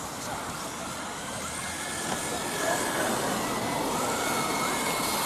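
Kyosho Fazer Mk2 1/10 scale electric RC touring cars racing, their motors whining in tones that rise and fall with the throttle over a steady hiss.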